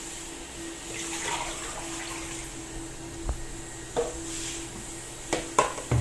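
Water running from a tap during washing-up, with a few short knocks of items being handled, most of them near the end.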